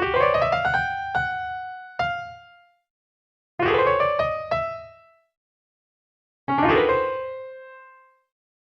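Software electric piano in FL Studio Mobile playing three short phrases. Each is a quick upward roll of notes into a chord that rings and fades away, with a pause between phrases.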